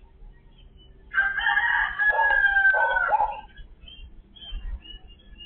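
A rooster crowing once: a single drawn-out call of about two seconds, starting about a second in. Faint, short, high bird chirps follow.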